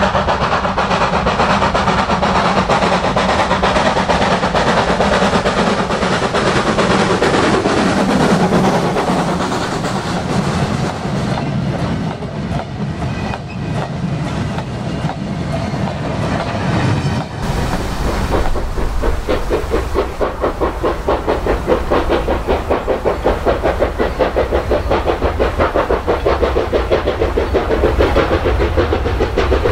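Industrial steam locomotive working hard as it hauls a train of coal hopper wagons past, followed by the wagons' wheels clicking over the rail joints. About halfway through the sound changes abruptly to a steady, rapid rhythm of exhaust beats over a low rumble.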